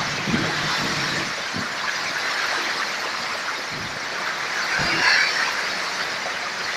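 Torrential rain pouring down in a storm, a steady hiss of downpour, briefly louder and higher about five seconds in.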